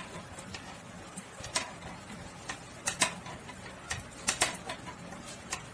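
Light, irregular clicks and taps from a metal needle being worked through fabric-strip stitches as purl stitches are made, with the strips rubbing on the needle.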